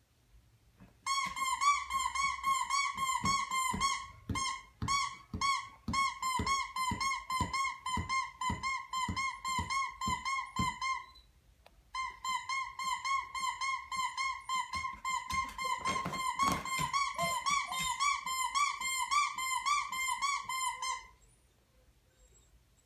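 Squeaky dog toy squeaked over and over, about three high squeaks a second, in two long runs with a short break between them.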